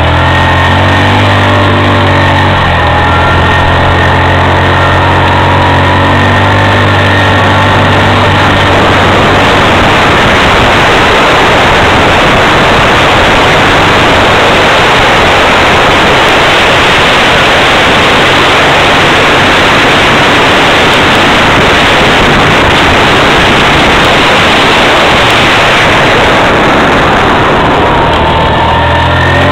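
A 325 cc quad's engine running loud and close. About nine seconds in, a dense rush of wind noise at speed covers the engine note, and near the end the engine note comes through again.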